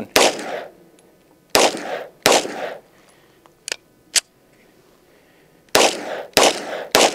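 Springfield Prodigy 9mm 1911-style pistol firing 124-grain +P rounds: three shots, a pause with two light metallic clicks as the pistol is worked by hand, then three quicker shots about half a second apart, each crack ringing briefly. The shooter says the modified tooless guide rod now catches under recoil on every shot.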